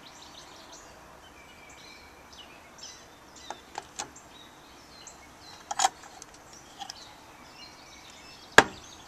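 Faint birds chirping in the background, with a few sharp clicks; the loudest click comes about eight and a half seconds in.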